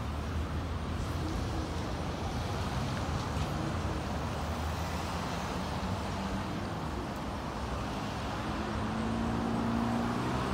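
Road traffic: cars passing close by, with a steady low rumble. An engine gets louder near the end as a car approaches.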